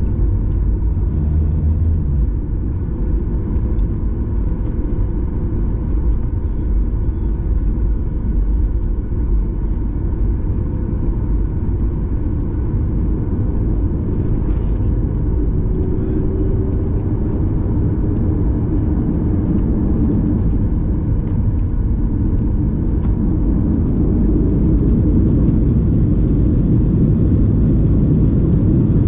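Boeing 737-800 engine and cabin noise heard from a window seat while taxiing: a steady low rumble from its CFM56-7B turbofans. The sound grows louder and brighter in the last few seconds as thrust comes up on the runway.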